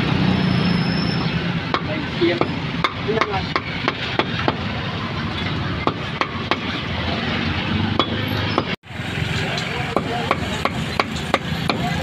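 A cleaver chopping meat on a chopping board: repeated sharp knocks, about three a second, over a steady hum of street noise.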